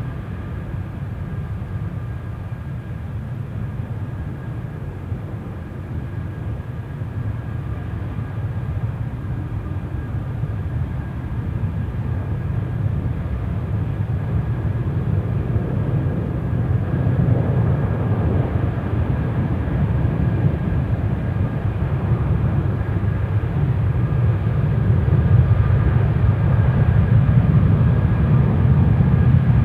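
Airbus A320's IAE V2500 turbofan engines running at high power during a stationary ground engine run: a steady deep rumble with a faint whine above it, growing gradually louder as power is increased.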